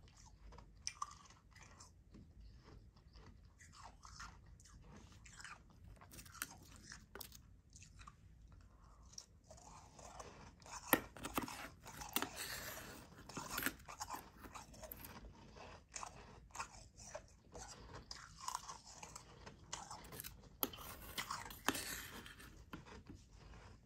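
Close-up chewing and crunching of soft, powdery ice: irregular crisp crunches that grow louder and come thicker about halfway through.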